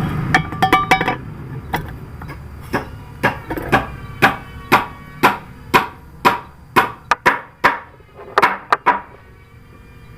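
Hammer blows on metal, a quick cluster of taps and then a steady run of about two ringing strikes a second that stops near the end.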